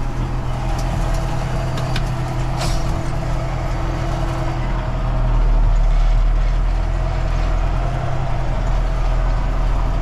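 Valtra tractor engine running steadily at even revs, driving a Kverneland rotary rake through its 540 Eco PTO while raking haylage.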